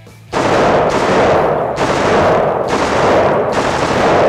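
M4 rifle (5.56 mm) firing short bursts, about five strings roughly a second apart. Each is sharp at the start and rings on in the echo of an indoor range.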